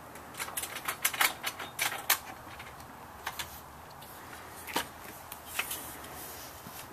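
Rattly clicks and light metallic clatter of aluminium saw-stand wing rails being handled: a quick run of clicks in the first two seconds, then a few scattered single clicks.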